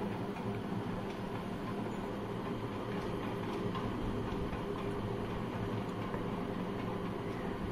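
Steady low background hum, with faint ticks of a graphite pencil making small strokes on paper.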